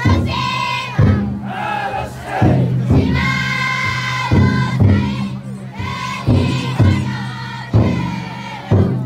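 A crowd of futon daiko bearers chanting and calling in unison, with long held calls, over the big taiko drum inside the float, struck about once a second.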